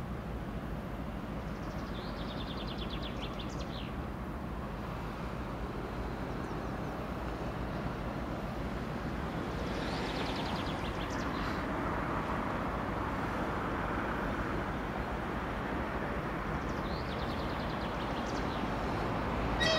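Steady low rumble of diesel trains idling at a station platform, from a TEP60 passenger locomotive and a DR1A diesel railcar. Short high chirping trills come three times over it.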